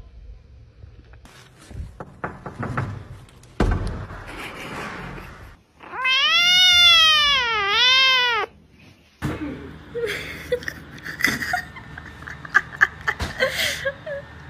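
A kitten gives one long, loud meow of about two and a half seconds whose pitch dips twice. Quieter, varied short noises come before and after it.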